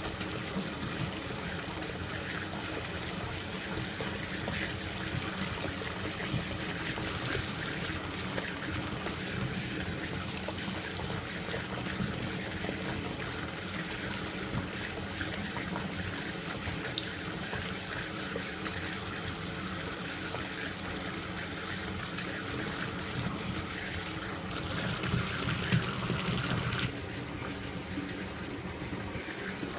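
Bathtub tap running, its water pouring through a handheld stainless steel mesh strainer and splashing into a foam-filled tub. The sound is steady, swells a little louder for a few seconds near the end, then cuts off suddenly.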